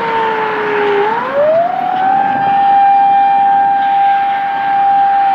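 Emergency vehicle siren in a slow wail: the pitch sinks, climbs about a second in, and then holds at a steady high pitch for several seconds.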